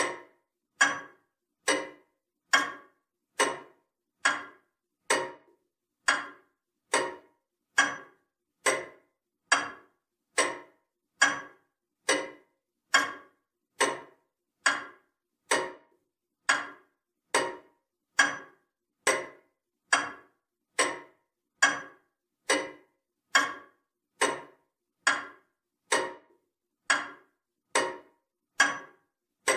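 Comtoise clock ticking, paced to a metronome's 70 beats per minute: one sharp tick a little less than once a second, each dying away quickly, with silence between.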